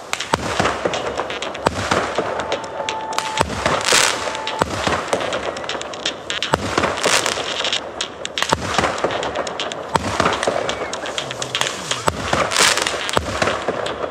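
New Year fireworks and firecrackers going off: a dense, constant crackle of pops with several louder bangs, about four seconds in, about seven seconds in and near the end. A thin steady whistle is heard for about two seconds before the first big bang.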